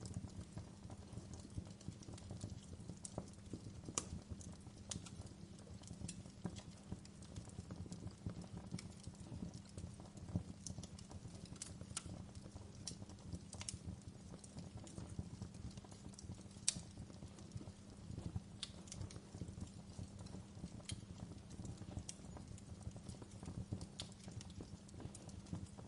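Wood fire crackling in a fireplace: a steady low rumble of burning with scattered, irregular sharp pops and snaps, a few of them louder than the rest.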